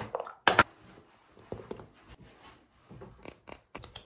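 Hands handling small makeup items close to the microphone: rustling and scattered clicks, with a sharp crackle about half a second in and a quick run of clicks near the end.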